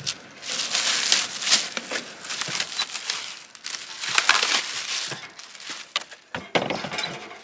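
Plastic wrapping crinkling and rustling in irregular bursts as a griddle is slid out of its cardboard box and unwrapped, with a few sharp knocks near the end.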